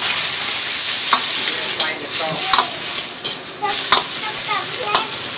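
Green vegetables sizzling in a hot wok while a metal ladle stirs them, scraping and knocking against the wok's side several times at irregular intervals.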